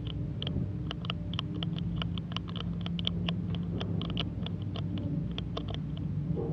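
A steady low machine hum with sharp, irregular clicks several times a second over it.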